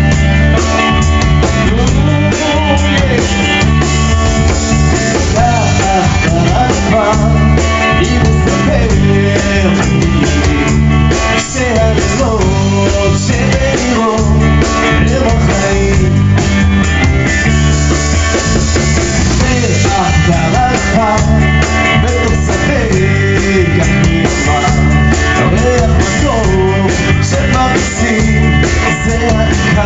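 Rock band playing a passage without sung words: drum kit and bass keep a steady beat while a melody line bends in pitch over the guitars.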